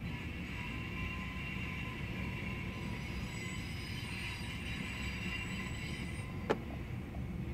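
CSX freight cars rolling slowly past on the rails: a steady rumble and hiss of wheels on track, with a thin wheel squeal in the first few seconds and a single sharp clank near the end.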